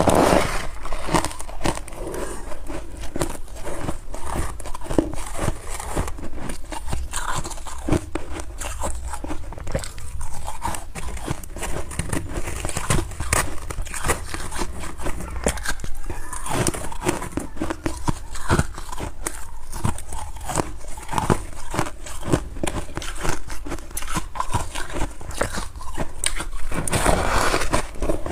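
Crunchy freezer frost being bitten and chewed close to the microphone: an irregular, continuous run of crisp crunches and crackles, with a dense cluster near the end.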